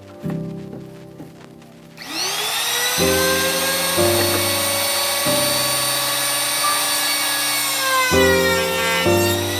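An electric saw's motor spins up about two seconds in, rising in pitch to a steady high whine. Near the end its pitch sags, as it does when the blade takes a load.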